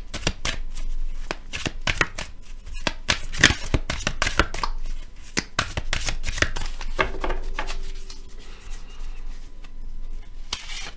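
A deck of angel oracle cards being shuffled by hand: a rapid run of card clicks and slaps that eases off for a few seconds past the middle, then a last flurry near the end.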